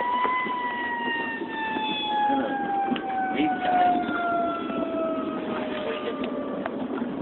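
A siren winding up to its highest pitch and then slowly winding down for several seconds, stopping near the end, over a steady low vehicle rumble.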